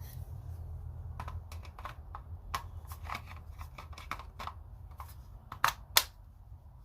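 A string of small plastic clicks and taps from handling a Kobalt cordless trim router, with two sharper clicks near the end.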